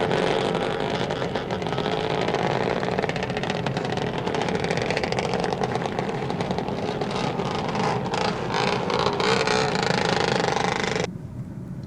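Traffic sound effect of motor vehicles driving and accelerating, which cuts off suddenly near the end.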